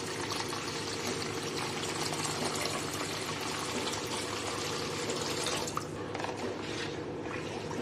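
Water poured in a steady stream into a bowl of green chilli-mint paste, splashing into the liquid as the bowl fills: a litre of water being added to make pani puri water.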